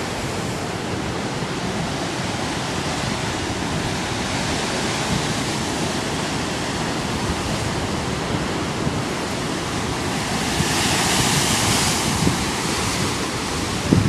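Ocean surf: a steady wash of breaking waves with wind buffeting the microphone, and a bigger wave crashing and hissing up about ten seconds in.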